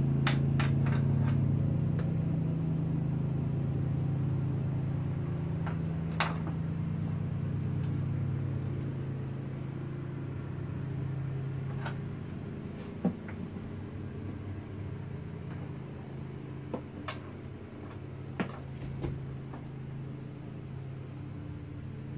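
Scattered sharp clicks and knocks of hand tools and plastic and rubber parts as the intake boot is pried off a dirt bike's throttle body: a quick cluster at the start, then single knocks now and then, with several close together near the end. Under them runs a steady low machine hum that slowly eases off.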